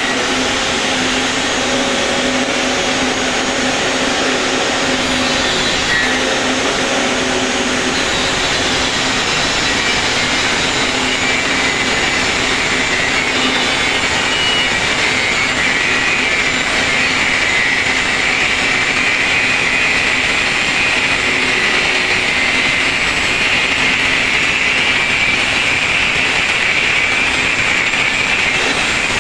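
A motor running steadily with a high whine that grows stronger about halfway through.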